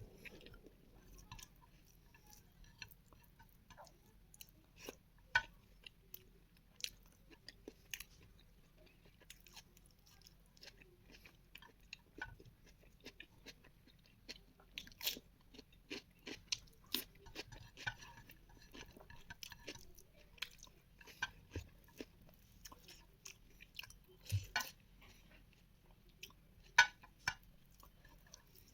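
Close-miked chewing of beef in a mukbang: irregular wet smacks and mouth clicks, with a few sharper clicks that stand out.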